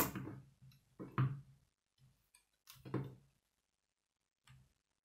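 K'nex plastic rods and connectors clicking and snapping as they are pressed together, about four separate sharp clicks with brief plastic rattles after them.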